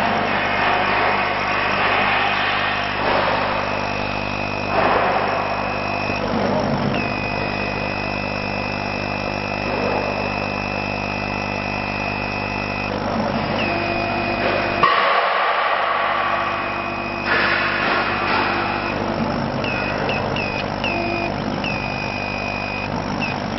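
Laser cutting machine at work on MDF: a steady mechanical hum under a high motor whine from the moving cutting head, which holds one pitch through long straight runs and chirps briefly each time the head changes direction, several times near the end.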